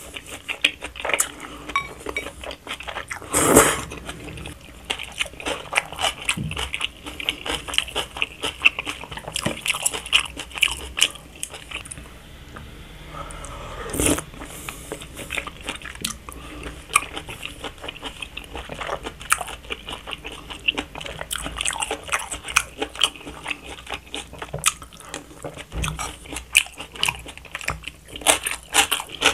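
Close-miked eating: a person slurping and chewing spicy stir-fried jjamppong noodles, with a dense run of wet smacks and clicks. Two longer, louder slurps come a few seconds in and about halfway through.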